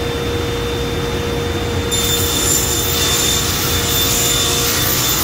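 Sliding table saw running with a steady hum; about two seconds in the spinning blade starts cutting into the wooden panel, adding a high, hissing whine that holds.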